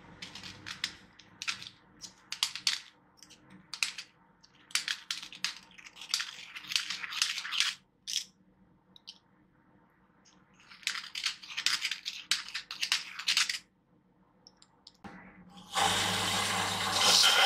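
A hand deburring tool scraping the freshly cut edge of a short steel pipe in quick repeated strokes, in clusters with short pauses. Near the end an electric belt grinder starts and runs loudly and steadily.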